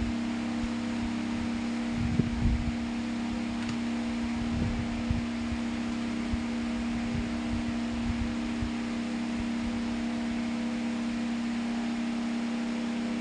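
Homemade table fan driven by a small 12 V DC motor, running steadily with an even hum and airy hiss. A few low thumps come about two seconds in and again around four to five seconds.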